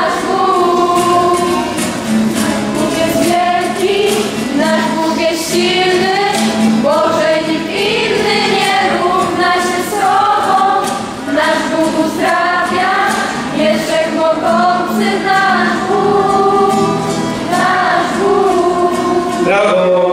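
A group of girls and young women singing a Polish worship song together, to acoustic guitar.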